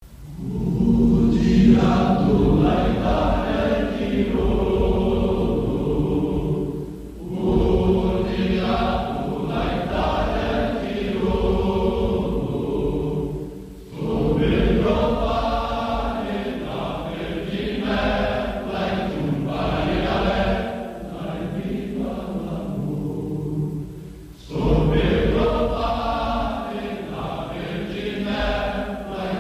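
Choir singing in long sustained phrases, breaking briefly for breath three times.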